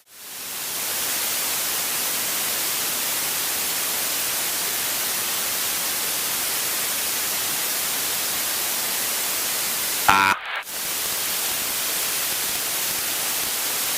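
Steady hiss of static from an aircraft headset intercom feed, cutting out briefly at the start and again about ten seconds in, with a short blip just before the second dropout.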